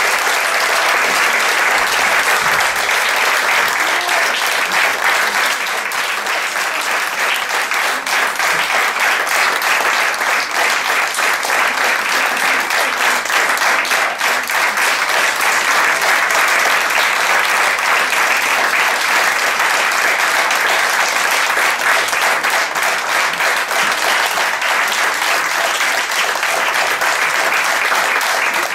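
Theatre audience applauding steadily through a curtain call, a dense sustained clapping that never lets up.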